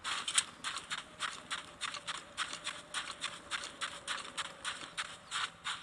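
Video game footsteps from a Nintendo Switch: a character running on sand, about three soft steps a second.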